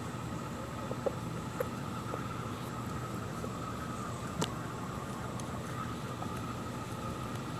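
Steady chorus of insects in the trees, with a few sharp taps, the loudest about four and a half seconds in.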